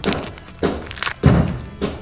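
Background music with a steady, heavy beat of about one low hit every two-thirds of a second.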